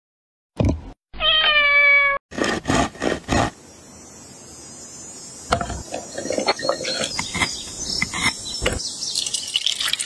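A cat meows once, a long meow of about a second. Then small clicks and knocks come as dried fruit is dropped into a bamboo cup, and near the end water is poured in with a hiss.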